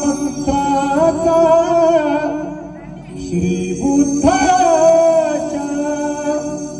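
A man singing a Marathi devotional song to the Buddha into a microphone, in two long held phrases with a wavering pitch.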